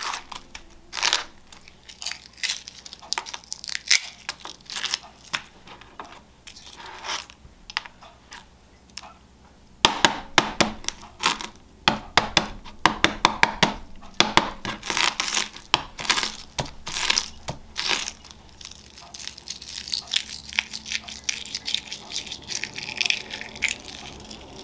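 Hard-boiled eggs being cracked on a wooden cutting board and peeled by hand: shells crackling and tearing away in repeated sharp clusters, busiest in the middle.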